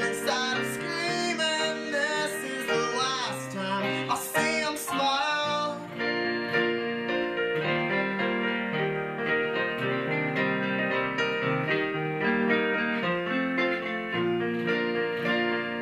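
An acoustic guitar and a keyboard play a song, with a man singing over them for the first five seconds or so. After that the two instruments carry on without the voice.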